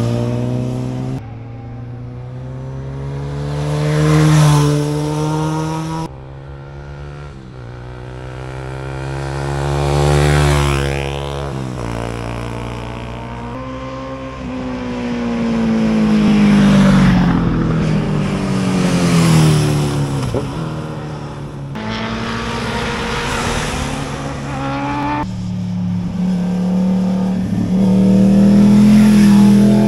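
Motorcycle engines passing one after another, revving up and down through gear changes as they take the bends, the pitch rising on acceleration and falling as each bike goes by. The sound changes abruptly several times as one bike's pass gives way to the next.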